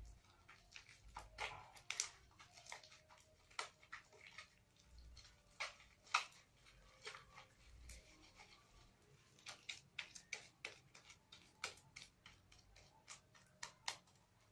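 Slime being mixed and kneaded: irregular sticky clicks and small pops, several a second, from the wet slime.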